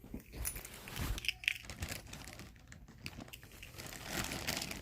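Shipping packaging crinkling and crackling in irregular bursts as it is handled and opened, growing busier near the end.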